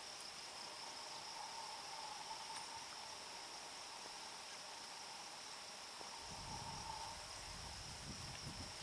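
Steady high-pitched buzzing of insects, with a second, lower steady drone beneath it. A low rumble comes in about six seconds in.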